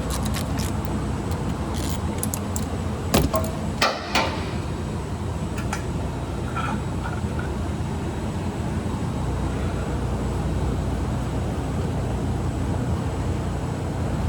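A few sharp clicks and knocks of hand tools and parts being handled under a car, bunched about three to four seconds in with fainter ticks a little later, over a steady low rumble of shop background noise.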